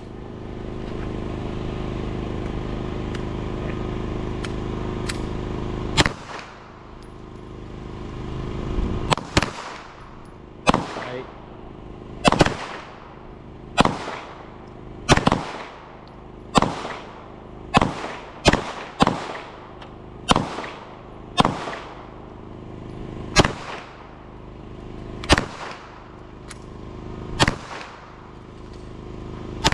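A steady noise with a low hum for about six seconds, then a string of single handgun shots, roughly one every one to two seconds, each followed by a short ringing echo from the range.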